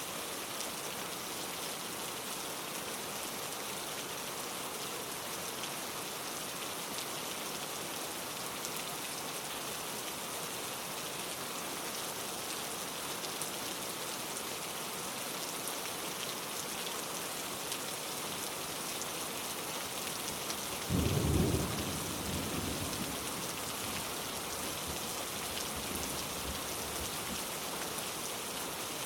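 Steady rain falling on surfaces, an even hiss of drops throughout. About two-thirds of the way in, a short low rumble of thunder swells and dies away within a couple of seconds.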